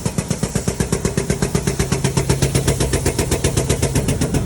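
Air-powered jack pumping to lift the semi truck's axle: a fast, even mechanical clatter of about ten strokes a second.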